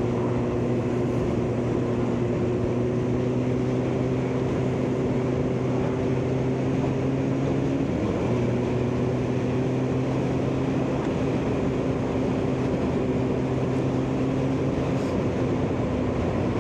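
Kawasaki ZX9R's inline-four engine, fitted with an aftermarket Akrapovic exhaust, running steadily at road speed, with wind noise on the microphone. There is a brief dip in the engine note about eight seconds in, then the note holds and climbs slightly.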